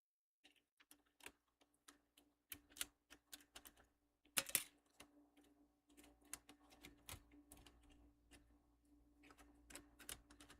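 Faint, scattered clicks and taps of plastic laptop covers being handled and fitted back onto the laptop's underside, with one louder click cluster about four and a half seconds in.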